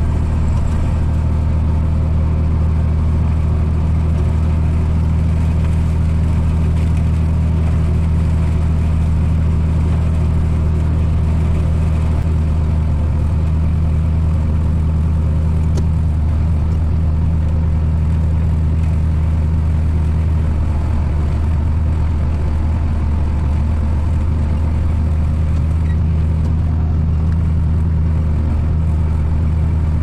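Farm tractor engine running steadily while pulling a bush hog rotary mower through tall sickle pod weeds, a constant low hum.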